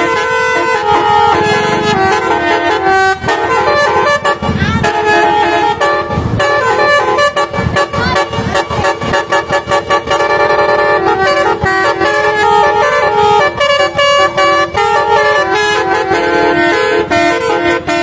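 Telolet multi-tone air horn on a Jetbus 3 coach playing a tune ('basuri' style) in held notes that step from pitch to pitch. A few low thumps come in around the middle.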